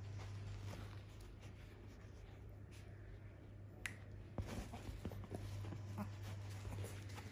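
Faint clicks and rustling of a Yorkshire terrier chewing and tugging at toys on a fabric sofa, with a sharper click about four seconds in and a few more after it, over a steady low hum.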